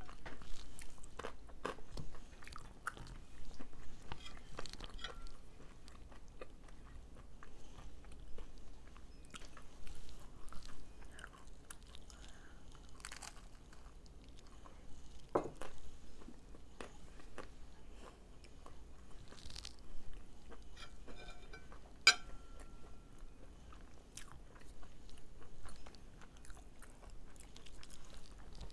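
Biting into and chewing crispy fried chicken: crunching of the breaded crust and chewing with many small scattered crackles and clicks. A single sharp click past the middle is the loudest moment.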